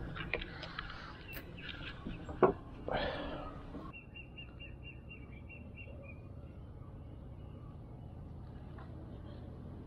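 Clicks and knocks of handling in a wooden canoe, with one sharp knock about two and a half seconds in and a splash of the paddle in the water just after. From about four seconds in, a bird gives a quick series of short high chirps, about four a second, for two seconds.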